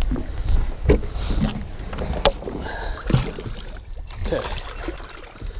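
A landing net holding a musky being handled at the side of a boat: water sloshing and a few sharp knocks about a second apart, over a low rumble.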